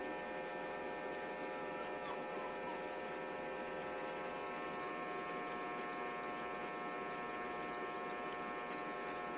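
Steady electrical hum made of many fixed tones, unchanging in level.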